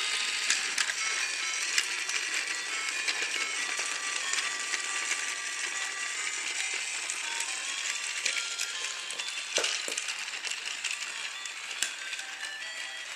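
Trackmaster Thomas toy engine running along plastic track, its small battery motor and gears rattling with scattered clicks. A high, tinny electronic tune of short stepped notes plays over it and fades out around the middle.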